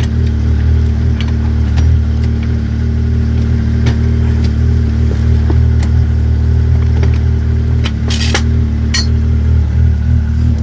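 Snowmobile engine running at a steady idle, with scattered light clicks and two short hissing bursts near the end.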